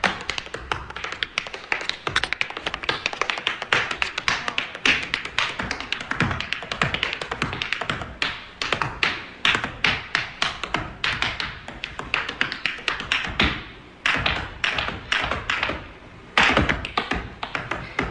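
Tap dancer's shoes striking a hard floor in fast, dense runs of sharp taps, with two brief pauses near the end.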